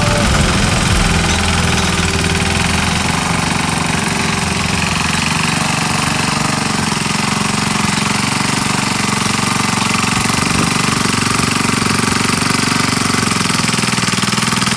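Small engine of a restored garden tiller running steadily with a fast, even chug.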